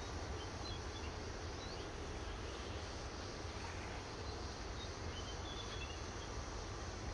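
Outdoor beach ambience: a steady low rumble and hiss, with a few faint, short, high bird chirps.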